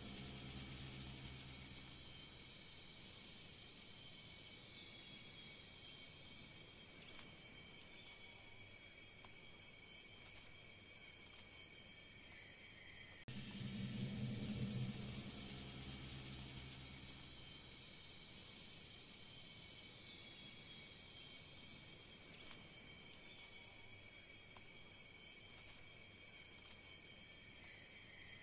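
Looped background soundtrack that repeats about every fifteen seconds: steady high-pitched tones throughout, with a low droning note for the first couple of seconds of each repeat.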